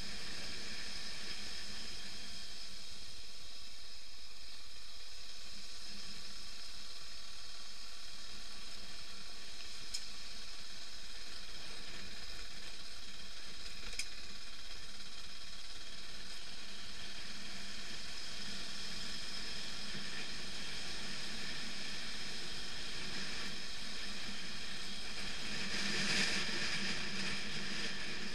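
Steady hiss of a motorcycle ride on a gravel track heard through a sealed action-camera housing, with a faint even engine hum from the BMW F 650 GS underneath. Two small clicks in the middle and a brief swell of noise near the end.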